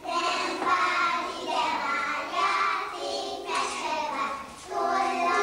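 A group of young children singing a Hungarian children's song together, with a short pause between phrases about four and a half seconds in.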